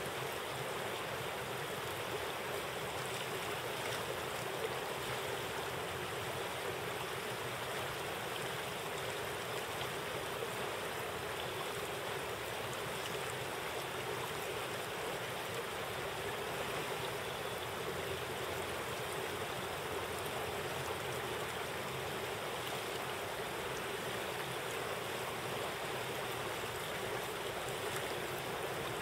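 Steady rush of flowing river water, an even hiss that holds at the same level throughout.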